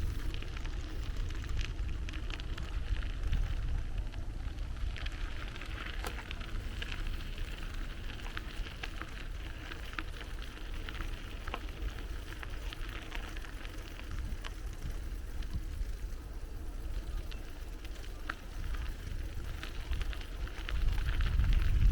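Riding a bicycle: a steady low wind rumble on the microphone over a crackling hiss of tyres rolling along the path, with scattered small clicks and rattles. The rumble grows louder near the end.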